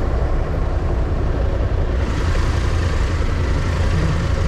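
Motorcycle riding, heard from the pillion seat: the engine runs under a steady low rumble of wind on the microphone, and the rushing hiss grows louder about two seconds in.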